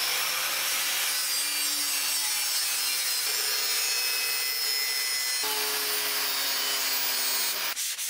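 Corded angle grinder with a wire wheel running at steady speed, scrubbing paint off an aluminium bike frame. Near the end it gives way to quick, even hand-sanding strokes on the bare frame.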